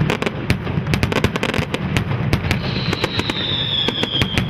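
Fireworks display: a dense, rapid barrage of bangs and crackles over a steady rumble, with a whistle sliding slowly downward about halfway through.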